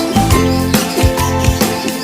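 Background music with a plucked guitar and a steady beat.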